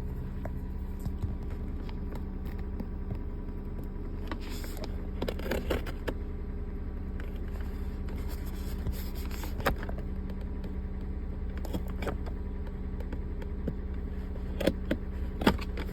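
A knife blade cutting and scraping at the tape and cardboard of a parcel, in short scratchy strokes and clicks, over a steady low hum.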